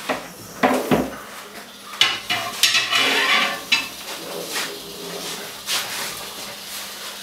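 Long metal snake tongs clinking and scraping on a concrete floor and against a cabinet while being worked to pull a king cobra out: a series of sharp clinks and knocks, with a stretch of scraping around the middle.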